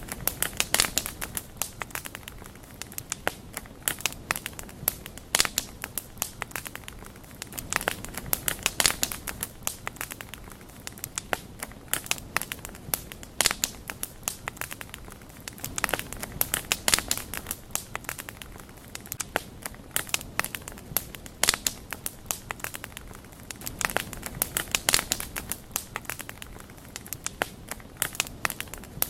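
Wood fire crackling: quick sharp pops and snaps that come in clusters every two to three seconds over a steady soft hiss.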